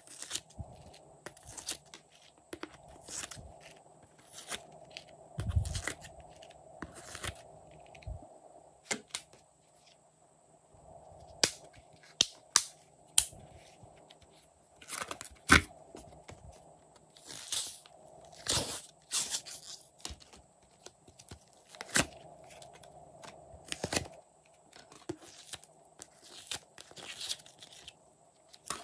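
Plastic mould trays and soft clay being handled: irregular sharp clicks and crackles as the trays are flexed, with soft tearing as clay pieces are peeled out, and one dull thump about five seconds in.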